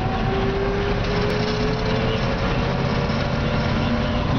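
1955 Chevrolet stepside pickup's engine and drivetrain heard from inside the cab, pulling steadily in third gear, with a thin whine that rises slowly in pitch as the truck gains speed.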